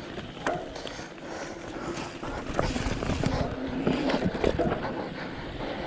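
Mountain bike riding fast along a dirt singletrack: wind rushing over the bike-mounted camera's microphone, tyre noise on the dirt, and frequent short knocks and rattles as the bike goes over bumps.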